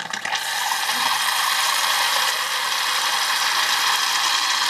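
Soviet home soda siphon, charged with a CO2 cartridge, jetting carbonated water from its spout into a glass under gas pressure: a loud, steady hiss that starts a moment after the lever is pressed.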